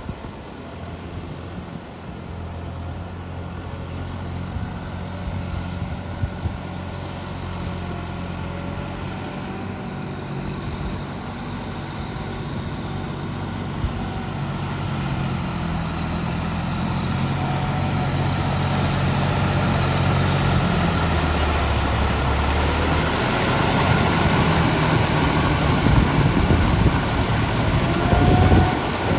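John Deere tractor's diesel engine running under load as it pulls a rotary tiller through wet paddy mud. It grows steadily louder as the tractor comes closer.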